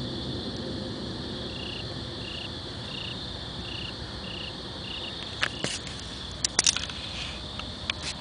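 Night insects: a steady high chorus, with a single short chirp repeating about one and a half times a second for several seconds. A few sharp clicks and knocks follow near the end.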